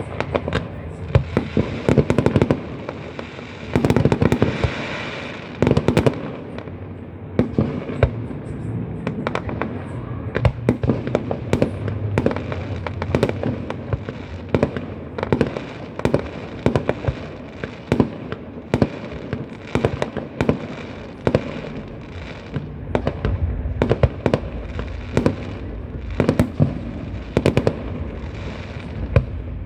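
Fireworks display going off: a continuous run of sharp bangs and crackling pops, several a second, with a louder crackling spell about four seconds in.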